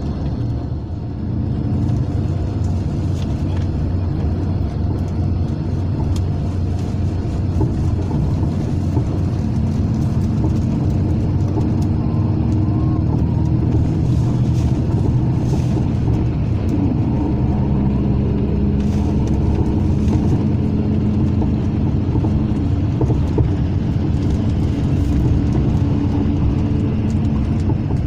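Steady interior drone of a Mercedes-Benz O500 RSD coach under way on the highway, heard from inside the passenger cabin: a low engine hum mixed with tyre and road rumble.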